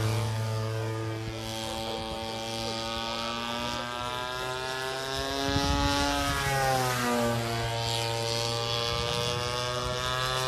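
Radio-controlled aerobatic model aeroplane's engine buzzing as it flies, its pitch dipping about six seconds in and then rising again.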